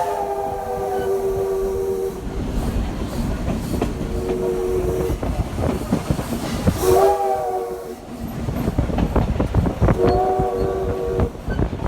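Steam locomotive whistle sounding several chord-like blasts: a long blast that ends about two seconds in, then three shorter ones, over the steady rumble and clickety-clack of the train's wheels on the rails.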